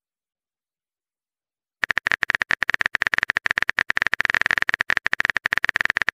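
Typing sound effect from a texting-story app: after about two seconds of silence, a fast, even run of keyboard-like clicks plays while the next message is being typed.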